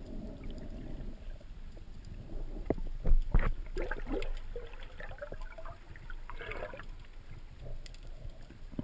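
Water sloshing and gurgling around the camera as a freediver swims, with a few sharp knocks about three seconds in.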